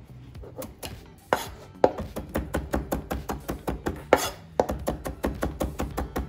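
Chef's knife rapidly chopping fresh dill on a plastic cutting board, mincing it fine: a quick run of blade knocks on the board, several a second, with a few louder strokes.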